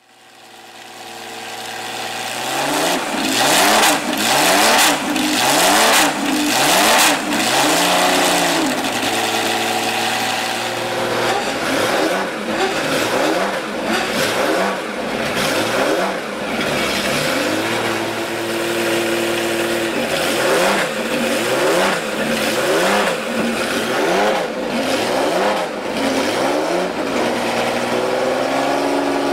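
Ferrari 512 BB LM's flat-12 engine, with the car standing still, idling and being blipped. There are three runs of quick throttle blips, each pitch rising and falling, with a few seconds of steady idle between the runs. The sound fades in at the start.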